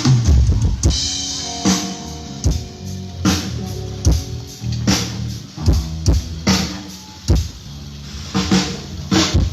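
Drum kit heard through a concert PA during a soundcheck: kick and snare hits in a steady beat about every 0.8 s, over held pitched notes.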